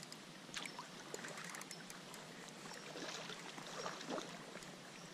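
Hooked steelhead splashing at the water's surface while being played on a bent rod, in several separate splashes.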